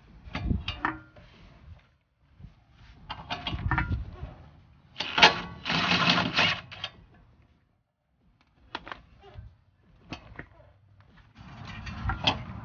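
Cordless impact wrench hammering in several short bursts, the longest and loudest about five seconds in, as it loosens the front suspension bolts.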